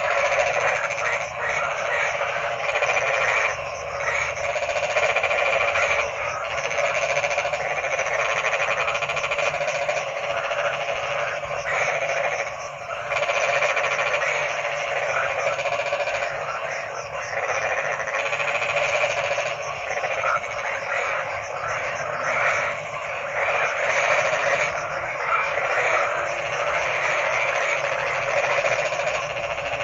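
A dense chorus of many frogs croaking at once, a continuous overlapping mass of calls with no pauses.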